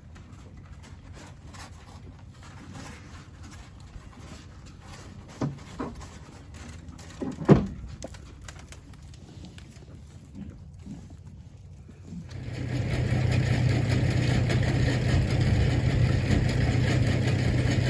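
A few soft knocks and rustles, then about twelve seconds in an engine starts up and runs loud and steady with a strong low hum.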